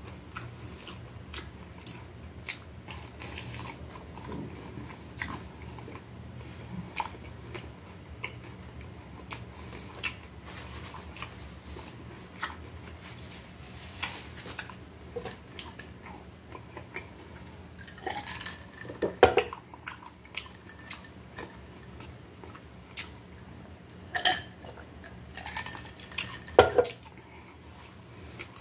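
Chewing and crunching of a homemade hot dog topped with crispy shoestring potato sticks: frequent small crackles, with louder clusters of crunching and light clatter about two-thirds in and again near the end.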